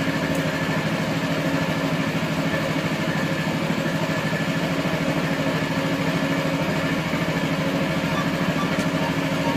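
A motor or small engine running steadily, with a fast, even pulse.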